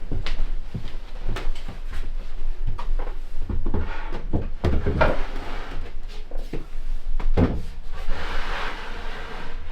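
Wooden cabinet parts being handled and test-fitted: a string of knocks and thumps, then a longer scraping slide about eight seconds in.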